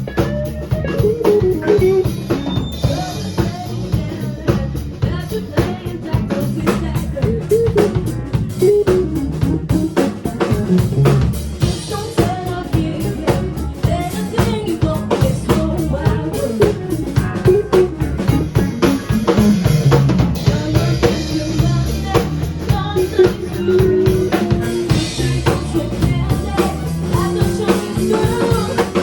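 A band playing rock music, driven by a steady drum-kit beat with snare and bass drum under pitched instruments.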